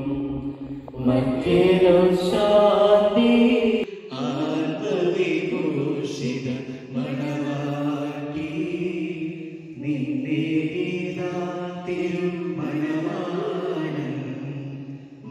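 Christian liturgical chant sung through a microphone, in long held melodic phrases with short pauses between them about 4 and 10 seconds in.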